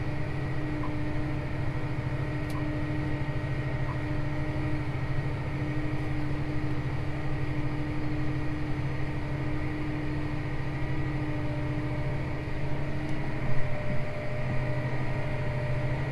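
Large tractor engine running steadily under load while pulling a planter, heard from inside the closed cab as a constant drone. A brief louder bump comes about two-thirds of the way through.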